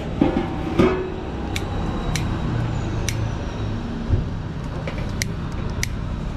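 Enamelled steel paella pan set down on a ring gas burner with a clunk and brief ring about a second in. Then a long utility lighter's igniter clicks several times at irregular intervals as it lights the burner, over a steady low rumble.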